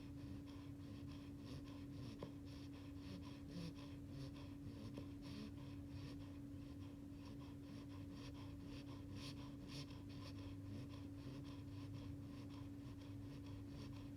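An eight-week-old beagle puppy snoring softly in his sleep: a quick, even run of little hissy snores, about three a second. A steady low hum runs underneath.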